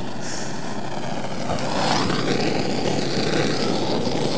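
Steady vehicle noise, growing louder about a second and a half in.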